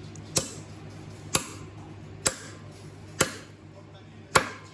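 Light hammer taps on a spark plug tool seated on an engine's spark plug: five sharp strikes, evenly spaced about a second apart, the last one a little harder.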